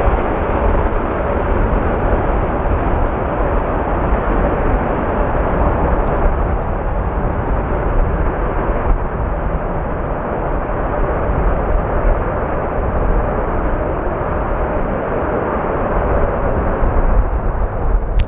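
Virgin Atlantic Airbus A350-1000's Rolls-Royce Trent XWB jet engines during its landing: a steady loud rush with a faint droning hum. Strong wind buffets the microphone.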